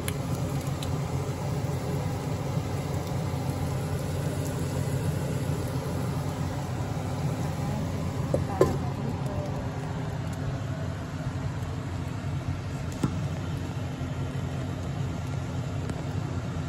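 Hamburger steaks frying in a lidded non-stick frying pan on an induction hob: a steady hum and hiss. About eight and a half seconds in there is a sharp click with a short ring, and a smaller click follows a few seconds later.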